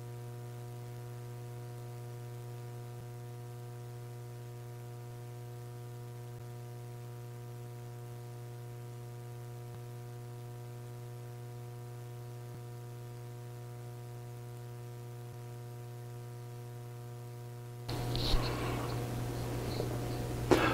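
Steady electrical hum, a low mains-type buzz with a ladder of higher overtones, unchanging throughout. Near the end, faint room noise and a small click come in.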